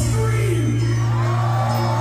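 Live heavy metal band playing amplified music: a low note held under notes that bend up and down in pitch.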